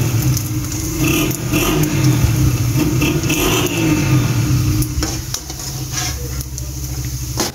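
Papad frying in hot oil in a steel wok, sizzling while a spoon stirs and clinks against the pan. A loud, steady motor hum runs underneath.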